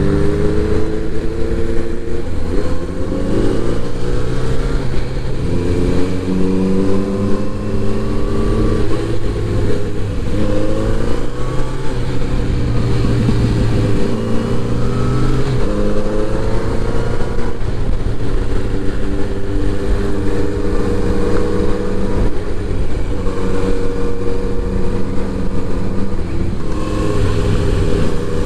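Kawasaki inline-four motorcycle engine under way, its note climbing as it accelerates and dropping back at each gear change, again and again, over steady wind and road noise.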